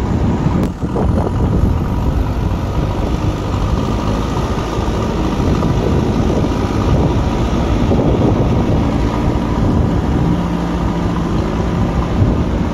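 JCB backhoe loader's diesel engine running steadily under load while the front bucket pushes earth.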